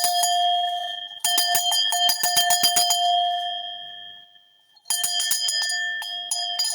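Large cowbell shaken hard, its clapper striking about ten times a second, ringing a clear note of about F5 with higher overtones. It is shaken in three bouts: the first stops about a second in, the second rings away by about four and a half seconds in, and the third starts near five seconds.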